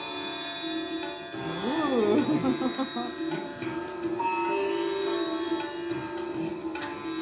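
Indian-style instrumental music: a plucked string melody over a steady drone, with sliding notes about two seconds in.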